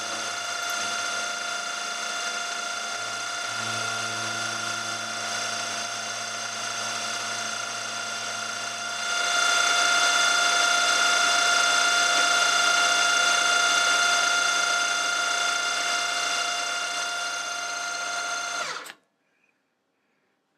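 Milling machine spindle turning a 6 mm carbide end mill at 1000 rpm, side-cutting a steel bar: a steady whine of even tones over cutting noise. The vibration in the cut is put down by the machinist to the work sticking too far out of the vise. It gets louder about halfway through, then cuts off suddenly near the end as the spindle stops.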